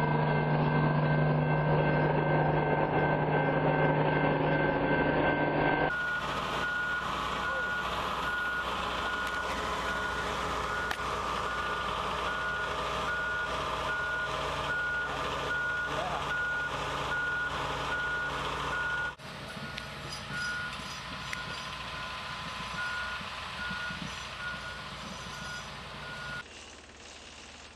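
A freight train rolling past for the first few seconds, then a heavy track-maintenance machine's reversing alarm beeping steadily, about once a second, over its engine.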